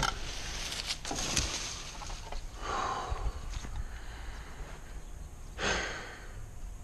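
A person breathing hard, with a few loud breaths; the loudest comes near the end.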